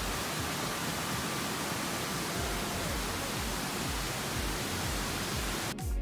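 Steady rushing roar of a waterfall, an even wash of falling-water noise. Near the end it cuts off and electronic background music with a beat starts.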